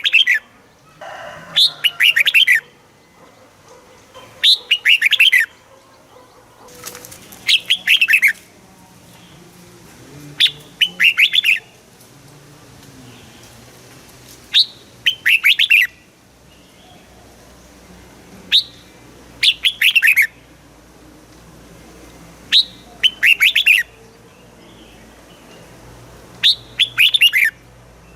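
Red-whiskered bulbul singing: short, bright phrases of a few quick falling notes, each about a second long, repeated about every four seconds.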